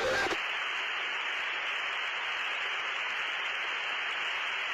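Steady, thin radio-like hiss from the T-45C Goshawk's cockpit intercom recording, with no voices on the channel.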